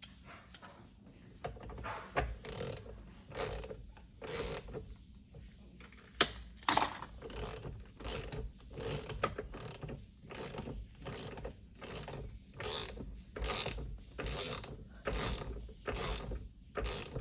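Ratchet wrench with a 22 mm socket working in repeated short strokes, a little over one a second, clicking as it tightens the steering wheel nut onto the column.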